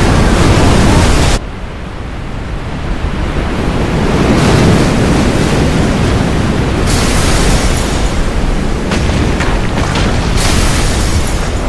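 Film sound effects of a tsunami wave: loud rushing, crashing water and spray. The sound drops suddenly about a second and a half in, then swells again into heavy surging surf, with bursts of hissing spray later on.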